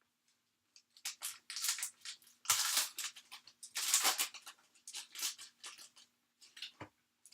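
A foil trading-card pack wrapper crinkling and tearing open in a series of sharp rustles, loudest about two and a half and four seconds in.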